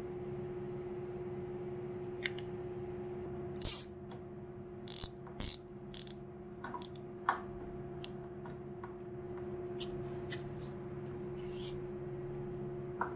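Short clicks and rattles of a screwdriver and small parts being worked at a motorcycle's brake master cylinder reservoir, the loudest a brief rattle a little under four seconds in, over a steady hum.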